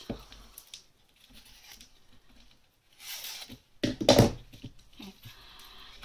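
Plastic gift-wrap ribbon drawn along a scissor blade to curl it: short scraping hisses, then ribbon and a paper tag being handled, with a louder rustle and bump about four seconds in.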